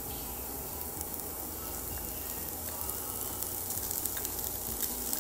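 Chopped onion and garlic sizzling in hot oil in a frying pan, with fine crackling. It grows a little louder near the end as minced sausage is tipped into the pan.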